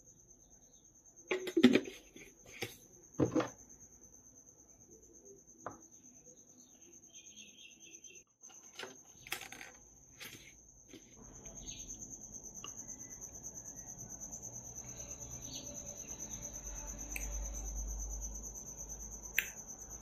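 Several sharp knocks of glassware and a blender jar on a granite countertop, the loudest about one and a half seconds in, followed by a few fainter clicks. A steady, high, thin trill runs throughout, and a low hum rises from about eleven seconds in.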